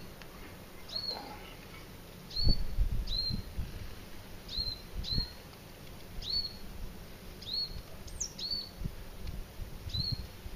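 A small songbird repeats a short, high chirp that drops in pitch, about once a second. Under it come a few dull low thumps and rumbles, the loudest about two and a half seconds in.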